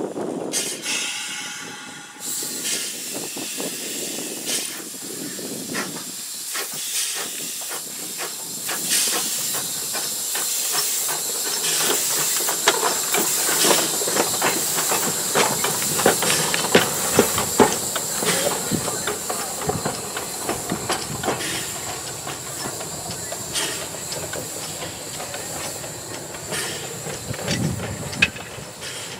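Small tank steam locomotive moving slowly past, hissing steam steadily with a scatter of clicks and clanks from its wheels and motion on the track. It is loudest as it passes close and fades as it draws away near the end. A short whistle-like tone sounds about a second in.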